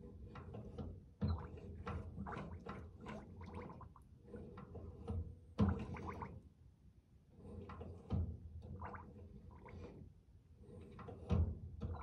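Air and brake fluid gurgling and bubbling through bench-bleed tubes back into the reservoir of a 1-1/8-inch-bore manual brake master cylinder as the brake pedal is pumped, with four sharper thumps along the way. The bubbling is the sign of air still being purged from the master cylinder.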